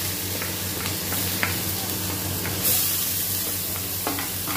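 Crushed ginger, garlic and green chilli sizzling in smoking-hot mustard oil in a stainless steel kadhai, with a wooden spatula scraping and tapping against the steel. About two and a half seconds in, the sizzle grows louder as chopped onion is scraped into the oil.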